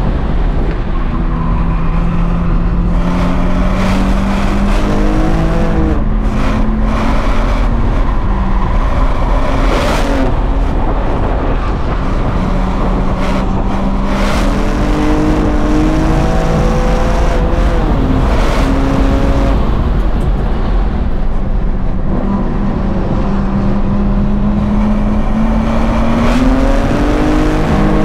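A 2023 BMW M2's twin-turbo inline-six, heard inside the cabin while lapping a race track. The revs climb and fall again and again with acceleration, braking and gear changes, over steady tyre and road rumble, with a few short sharp knocks partway through.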